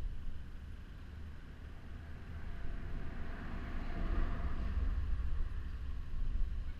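Wind rumbling on the microphone, with the rushing noise of a passing vehicle that swells and fades around the middle.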